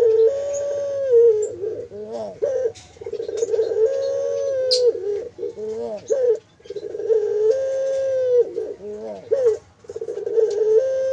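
Puter dove (domesticated Barbary dove) cooing over and over, about every three seconds. Each coo starts as a wavering run of notes and goes into a long held note that steps up in pitch and drops back.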